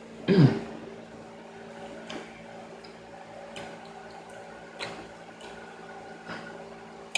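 Eating sounds close to the microphone: faint wet mouth clicks and smacks of chewing, spaced a second or so apart, after a short falling "mm" at the start.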